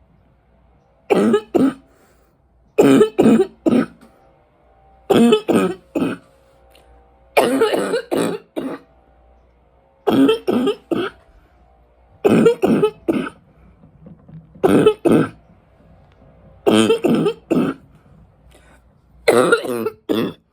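A woman's deep, barking smoker's cough, in about nine fits of two to four coughs each, one every two seconds or so. She puts these chest-rattling coughs down to winter allergies together with smoking.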